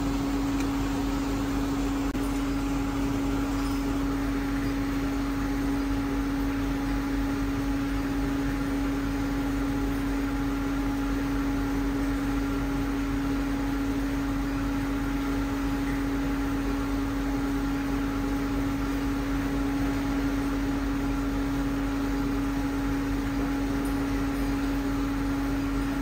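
Induction melting furnace running, heating a graphite crucible of copper tubing to red heat: a steady hum with one strong constant mid-low tone and fainter higher tones over an even hiss.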